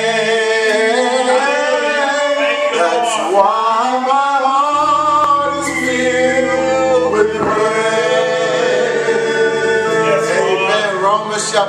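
A man singing a slow gospel line in long held notes that bend in pitch; low sustained chords come in underneath about five seconds in.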